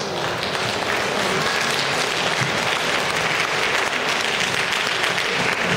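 Audience applauding steadily throughout.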